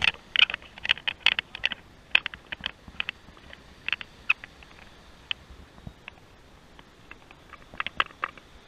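Irregular sharp clicks and taps, dense in the first couple of seconds, sparse after that, with a short cluster again near the end.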